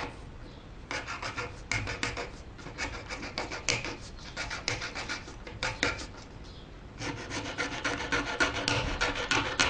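Small saw blade of a multitool cutting through plastic in back-and-forth strokes, with a pause about six seconds in and quicker strokes after it.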